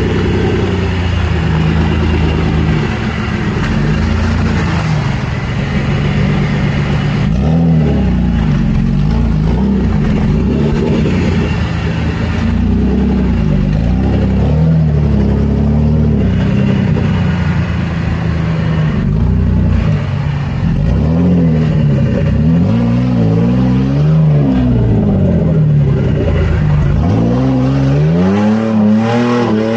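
Off-road 4x4 engine running continuously under load, its pitch repeatedly climbing and dropping back as it is revved and eased off; it revs up sharply near the end.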